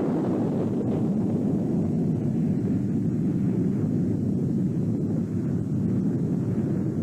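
A steady low rumbling noise, even and unbroken, with no tone or rhythm.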